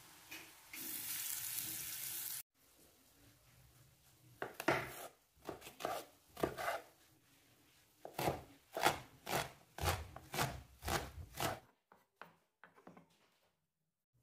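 Knife chopping vegetables on a cutting board: a dozen or so cuts at about two a second, with a short pause partway through. Before the chopping there is a brief hiss lasting under two seconds that cuts off abruptly.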